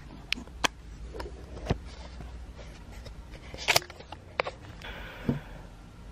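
Handling noise from a camera being moved and repositioned close to the microphone. There are about six sharp taps and knocks, the loudest about three and a half seconds in, with light rustling between them.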